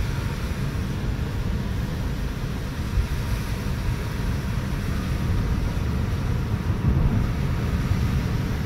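Steady low road and engine noise heard from inside a moving car.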